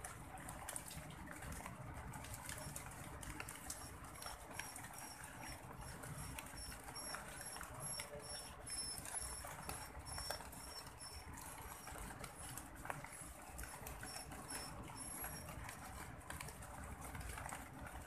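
Zebra dove pecking rice grains off pavement: a light patter of small taps. Behind it, from a few seconds in until a few seconds before the end, a high, evenly repeated chirp sounds about two to three times a second.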